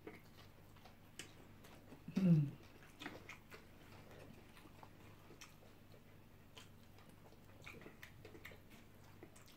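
Quiet eating sounds: chewing and small clicks of metal spoons scooping jollof rice, scattered through. A single short vocal sound, falling in pitch, about two seconds in.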